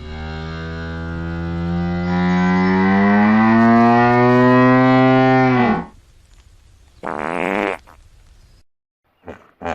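Hippopotamus calling: one long, drawn-out call of about six seconds whose pitch slowly rises, then drops off and stops. A shorter call follows about a second later, and a quick series of short grunts starts near the end.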